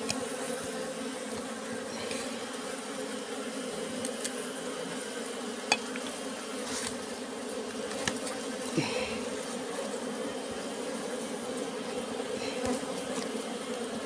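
A swarm of dwarf honey bees buzzing steadily around their nest comb as it is pulled out by hand, with a few faint clicks and scrapes.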